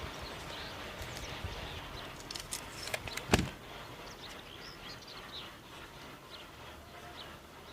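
Small birds chirping, with a handful of sharp knocks or clicks a little under halfway through. The last knock, about three and a half seconds in, is the loudest.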